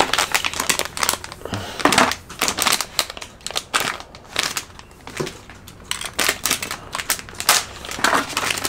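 Plastic packaging bag crinkling and rustling as it is handled and opened by hand, in irregular crackles.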